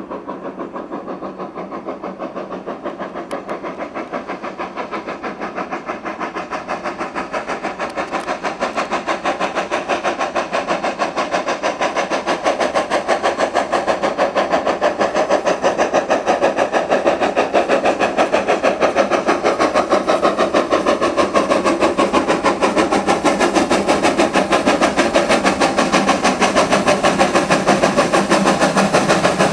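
GWR Manor class 4-6-0 steam locomotive No. 7820 working a train, its exhaust beating in a steady rhythm. The beats grow steadily louder as the locomotive comes closer.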